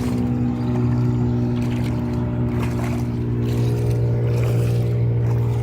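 An engine running steadily at a constant speed: a low, even hum with no change in pitch.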